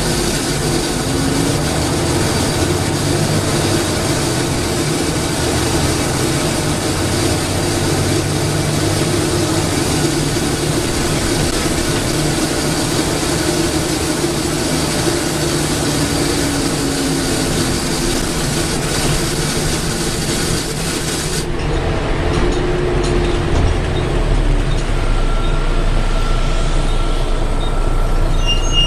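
Volvo B7TL double-decker bus heard from inside while under way, its Volvo D7C six-cylinder diesel running steadily. A hissing rush over the engine stops suddenly about two-thirds of the way through, and a steady high whine sets in near the end.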